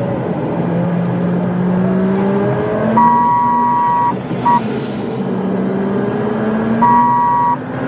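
A car engine running under acceleration, its pitch rising in stretches. A two-note horn blows three times over it: a long blast about three seconds in, a short toot, then another long blast near the end, sounded while overtaking a bus.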